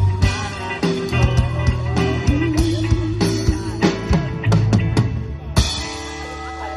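Live band playing an instrumental passage on drum kit, bass and electric guitar, with no singing. About five and a half seconds in it hits a cymbal crash and holds a ringing chord.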